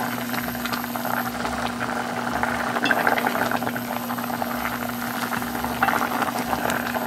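Pork gukbap broth boiling hard in a stainless steel pot on an induction cooktop, a dense crackle of bubbling and popping, while a wooden spoon stirs through it. A steady low hum runs underneath.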